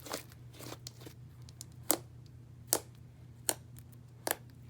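Homemade fluffy slime being stretched and squeezed in the hands, giving sharp little pops about every second, four in all, the first about two seconds in.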